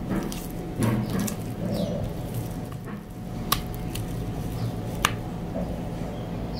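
A silicone spatula stirs wet, shaggy bread dough in a glass bowl, making a squishing, scraping sound. Two sharp clicks about a second and a half apart come through the stirring.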